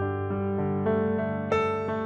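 Background music led by a piano-like keyboard: a slow melody over held chords, with a new note about every half second and a brighter, louder note about a second and a half in.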